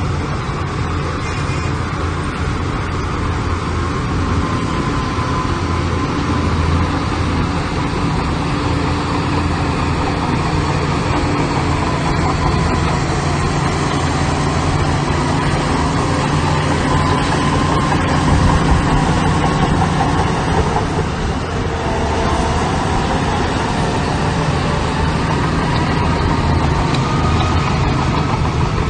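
Heavy diesel earthmoving machinery running steadily, with a higher whine above the engine that wavers up and down in pitch.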